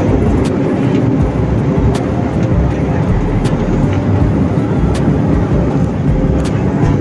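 Cabin noise of a turboprop airliner rolling fast along the runway: the steady drone of the engines together with the rumble of the main landing gear tyres on the tarmac, heard from inside the cabin. Faint short ticks recur about every second and a half.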